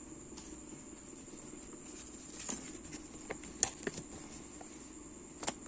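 A few light clicks and taps from handling a cellphone while a SIM card is fitted into it. They come scattered through the middle, with one more near the end, over a steady faint hum and a thin high whine.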